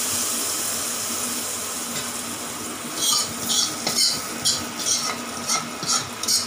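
Hot tempering oil sizzling as it is poured into cooked bottle gourd kootu, the hiss dying away over the first few seconds. Then a steel ladle scraping out the kadai in about eight quick strokes, roughly two a second.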